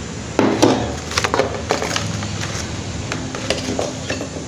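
Thin clear plastic lid crackling and clicking as it is handled and lifted off a steel bowl of rotis: a string of sharp clicks and knocks, loudest about half a second in.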